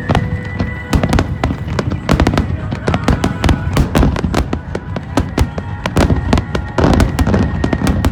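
A fireworks finale: a rapid, unbroken barrage of shell bursts and crackling reports, many bangs a second. Music with sustained tones plays underneath.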